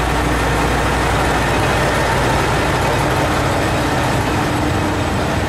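Echigo TOKImeki Railway ET122-1000 series diesel railcar pulling away from the platform, its engines running steadily under load as it passes close by.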